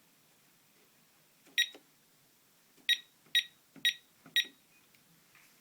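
Visonic alarm control panel keypad beeping as its buttons are pressed: one short beep, then four more about half a second apart, each with a soft key click under it.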